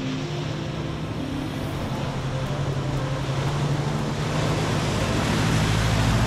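Toyota four-wheel-drive ute's diesel engine running as it drives through a shallow creek crossing, its wheels splashing through the water. The engine and splashing grow steadily louder as it approaches, loudest about six seconds in as it passes close by.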